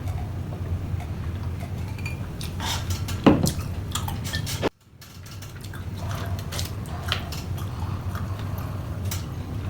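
Utensils clinking and scraping against a dish while someone eats noodles, over a steady low hum. The clicks are scattered, the loudest about three seconds in, and the sound cuts out abruptly for a moment near the middle.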